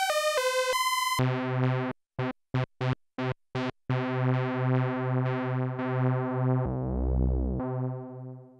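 Sequential Prophet-10 analog polysynth playing factory presets. A bright high note ends about a second in. A low, rich bass patch follows: a held note with a steady rhythmic pulse, a run of six short staccato stabs, then more pulsing held notes that fade out near the end.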